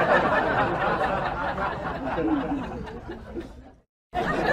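Murmur of many voices chuckling and chattering, like an added laugh track. It drops out abruptly for a moment near the end, then comes back.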